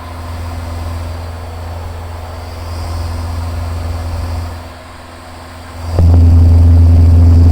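Steady engine and airflow drone of a Van's RV-7 in flight, heard in the cockpit. About six seconds in, a much louder steady drone cuts in abruptly and holds for roughly two seconds.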